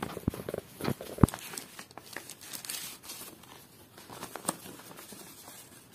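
Paper rustling and crinkling as a paper envelope and a folded printed leaflet are handled and unfolded, with a few sharp paper snaps in the first second and a half, then fainter rustling.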